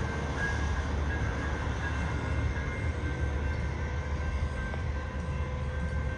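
A train rolling by with a steady low rumble from the locomotive and cars on the rails, with faint steady high tones over it.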